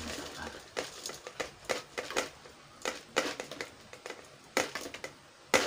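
Stainless-steel mesh sieve knocked against the rim of a plastic tub to shake off superworms clinging to the mesh: a run of irregular sharp taps, the loudest near the end.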